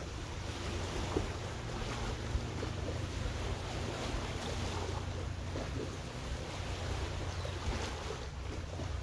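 Steady low rumble with wind buffeting the microphone, and a few faint light knocks.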